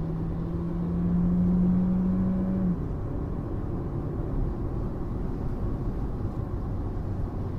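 Car engine running with a steady low rumble. For the first few seconds a hum over it rises slightly in pitch, then drops away, leaving the rumble.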